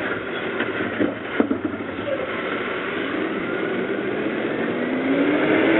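Automated side-loading garbage truck with an AutoReach arm at work: the diesel engine and hydraulics running steadily, with three sharp knocks in the first second and a half as the cart is handled. Over the second half a whine rises in pitch as the engine and hydraulics build up.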